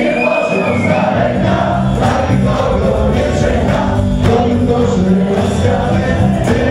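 Live dance music from a wedding band with sung vocals, loud and continuous.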